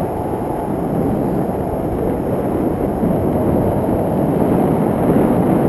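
Wind rushing over a camera's microphone in tandem paraglider flight: a loud, steady low rumble that swells slightly toward the end.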